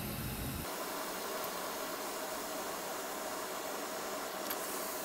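Steady fan-like hiss with a faint hum; the low rumble drops away under a second in, and there is one faint click near the end.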